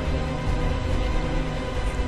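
Background music with held low bass notes under sustained higher tones.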